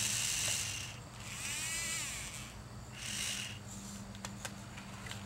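Small electric gear motors of a remote-control car's grabber arm whining in short bursts, the middle burst rising and falling in pitch. A few light clicks follow near the end.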